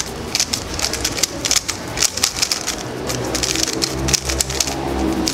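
Rapid, irregular clicking and clacking of a MoYu Weilong WR M 2020 magnetic 3x3 speedcube being turned at full speed during a timed solve. This is the noisier-turning cube of the two being compared.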